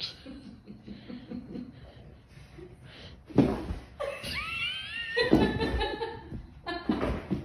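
A person laughing, starting about three seconds in after a quiet stretch and continuing to the end, with the pitch of the laughter rising and falling.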